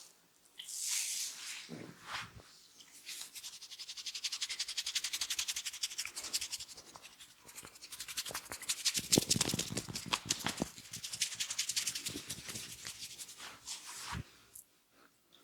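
Fingers rubbing and scratching rapidly through hair and over the scalp during a head massage, a fast, even train of strokes, loudest about halfway through. A brief hiss comes about a second in.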